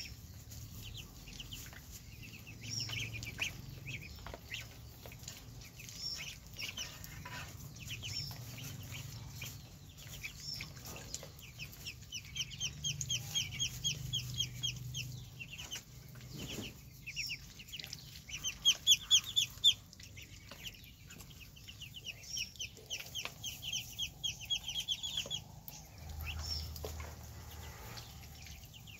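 A brood of ducklings peeping constantly, many high, short peeps in rapid runs that overlap, loudest for a couple of seconds past the middle.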